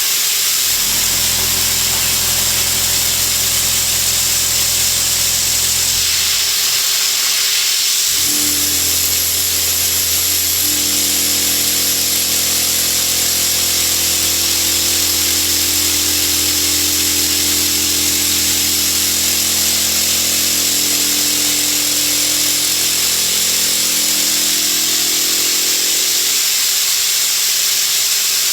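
CNC milling machine contour-milling S50C carbon steel with an OSG Phoenix PMD indexable cutter: a steady cutting hiss over a low machine hum. The hum eases off about six seconds in, returns about two seconds later, and fades again near the end.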